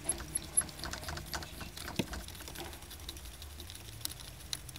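Light, irregular clicking and rattling as a shift knob is twisted and unscrewed by hand from an S13's gear lever, with one sharper click about two seconds in.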